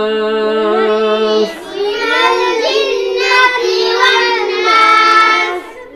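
A child's voice chanting melodically in the drawn-out style of Quran recitation: one long held note, then a run of gliding, ornamented phrases that fades out just before the end.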